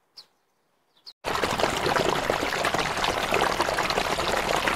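A steady, loud rush of running water, starting abruptly about a second in after near silence.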